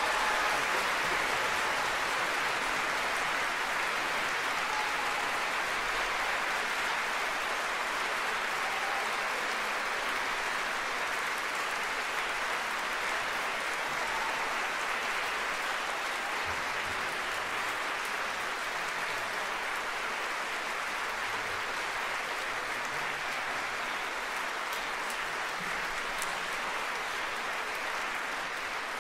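Theatre audience applauding: dense, steady clapping that tapers off slightly toward the end.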